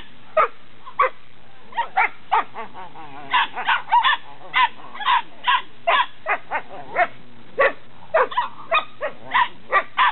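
Belgian Malinois puppies barking and yipping at play: many short, high, sharp barks coming irregularly, several a second at times.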